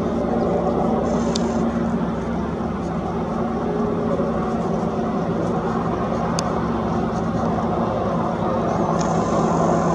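US Marine Corps AH-1Z Viper attack helicopter flying overhead: a steady, loud noise of rotors and turbine engines with a constant low hum.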